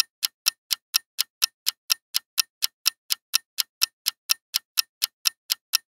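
Quiz countdown timer sound effect: clock-like ticking, about four sharp ticks a second, evenly spaced while the timer runs down.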